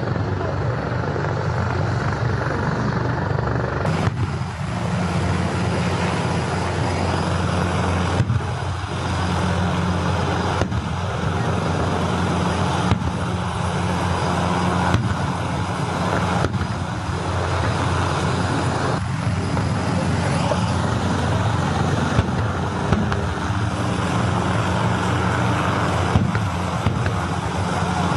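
Steady, loud engine noise with a low hum, and faint ticks about every two seconds.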